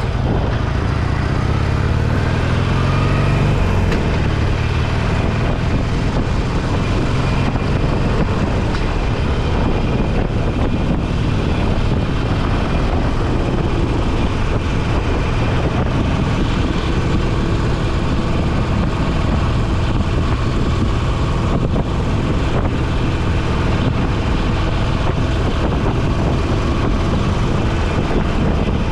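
Motorcycle engine heard from the bike while riding: the engine note rises over the first few seconds as it accelerates, then it runs steadily at speed under a constant rush of wind and road noise.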